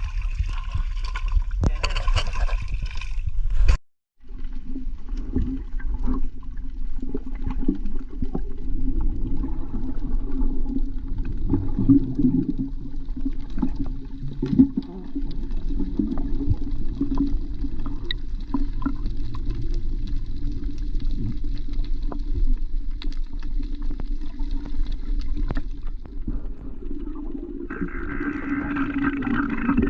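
Muffled underwater noise: a steady low rumble of water with many scattered clicks and knocks.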